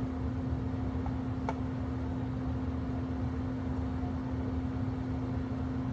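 Steady background hum with a constant low tone, like a fan or air-conditioning unit running, and one faint click about a second and a half in.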